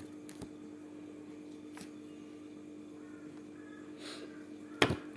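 Quiet kitchen background: a steady low hum runs throughout, with a few faint chirps. A single sharp knock near the end is the loudest sound.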